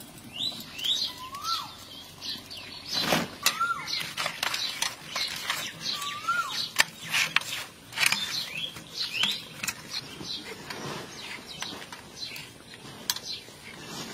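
Small birds chirping: short whistled notes that rise and fall, repeated a few times, with quick upward chirps between them. Under them are wet clicks and squelches from hands rubbing turmeric into raw fish pieces in a steel bowl.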